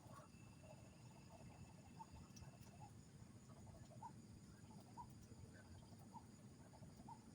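Near silence: faint low background hiss with soft short chirps about once a second and a faint thin steady tone in the first few seconds.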